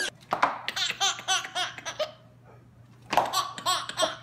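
Baby laughing in runs of short, quick bursts, pausing for about a second near the middle and then laughing again.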